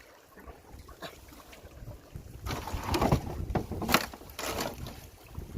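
Water splashing and knocks around a small fishing boat, quiet at first and then a busy run of splashes and sharp knocks from about halfway.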